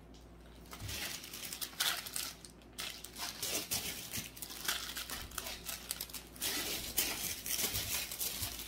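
Packaging crinkling and rustling in uneven bursts as a merchandise headband is handled and unwrapped, starting about a second in.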